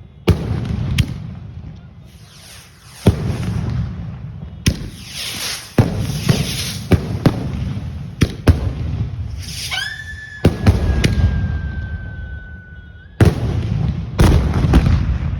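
Fireworks going off: a string of sharp bangs with crackling between them. About ten seconds in, a long whistle rises and then holds, sinking slowly for about three seconds.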